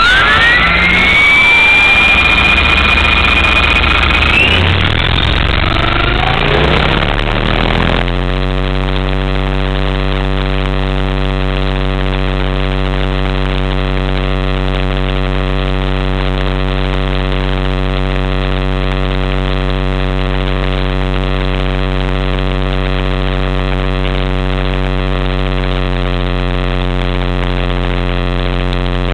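HK-500GT electric RC helicopter spooling up, heard from a camera mounted on the airframe: a rising whine that levels off high for a few seconds, then from about eight seconds a steady, unchanging drone from the motor and rotor at flying speed.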